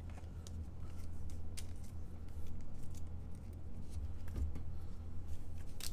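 Trading cards being handled and shuffled by hand: faint, scattered clicks and slides of card stock over a steady low hum.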